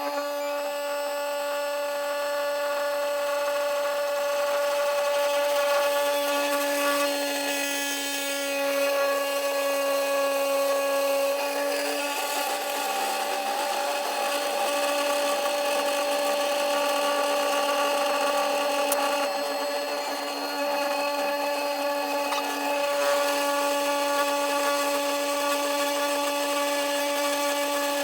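CNC 3018 Pro router's spindle motor whining at a steady pitch while its end mill cuts aluminium, with a grinding cutting noise that swells and eases as the tool moves through the metal.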